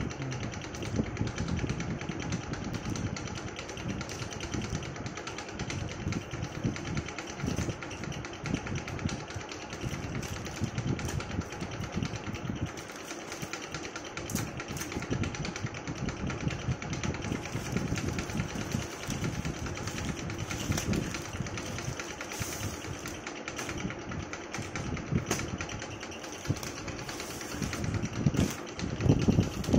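Plastic courier mailer crinkling and rustling as it is handled and cut open with scissors.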